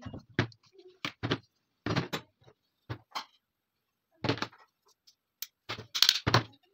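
Metal parts of a stripped TT pistol being set down and handled on a wooden tabletop: a string of separate knocks and clacks, the loudest two about six seconds in.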